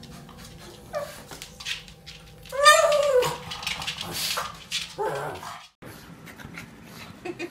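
Pugs yipping and whining, with one loud whining yelp about two and a half seconds in whose pitch rises and then falls.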